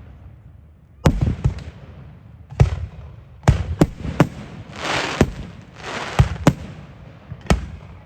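Fireworks display: a quick, irregular series of sharp bangs as shells burst, about a dozen in all, with two longer hissing stretches in the middle.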